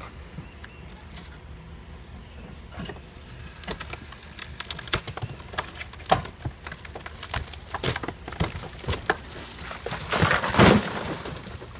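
A fire-weakened wood-frame house wall cracking and snapping as it is pulled, the cracks coming faster and louder until it gives way in a loud crash near the end. A vehicle engine runs low and steady underneath.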